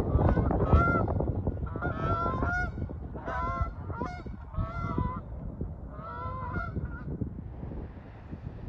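Geese honking: a flock calls repeatedly in several bursts of short honks that stop about seven seconds in, over a steady low rumble.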